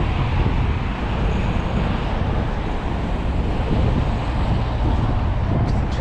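Wind buffeting the microphone in a steady low rumble, with a few faint clicks near the end.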